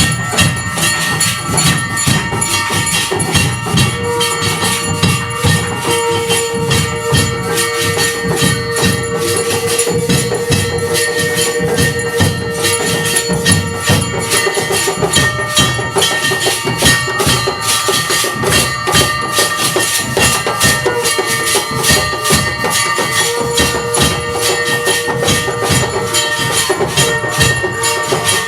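Hindu aarti music: bells and jingling percussion struck rapidly and without a break, over drumming. A long steady note is held for about ten seconds starting a few seconds in, and again for a few seconds near the end.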